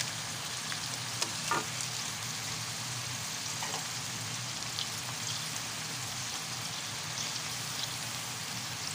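Yardlong beans and ground pork sizzling steadily in a hot wok, with a few light knocks and scrapes of a wooden spatula stirring them.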